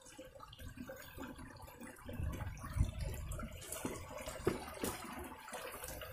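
Shallow rocky stream trickling faintly, with scattered knocks and scuffs on the stones and handling noise as the phone is carried over them.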